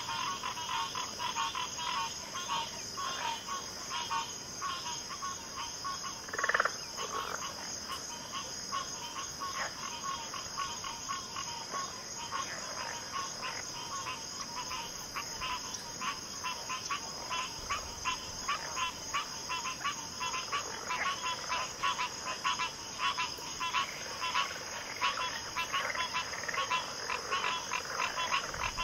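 A dense chorus of frogs calling in quick, overlapping croaks, over a steady high-pitched hum. One louder call stands out about six and a half seconds in.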